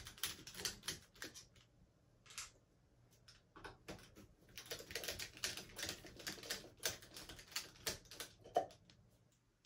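Rapid small metallic clicks and ticks from a hand screwdriver with a Torx T9 bit working the small screws at the top of a Ninebot Max's handlebar stem. The clicking thins out for about two seconds early on, then runs steadily again until near the end.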